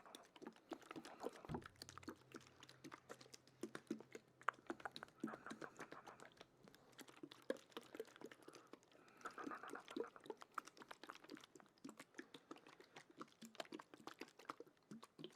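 Soft, close-up ASMR mouth sounds: dense, irregular wet clicks and smacks made right at the microphone.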